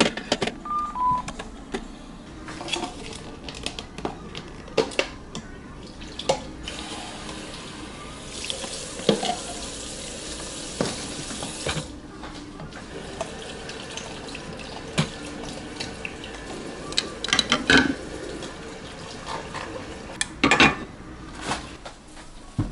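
A water tap running into a small sink for about five seconds partway through, among scattered clicks and knocks of objects being handled on a counter.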